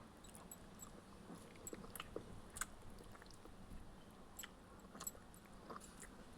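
A person chewing a mouthful of egg and rice, soft and wet, with irregular small mouth clicks and smacks.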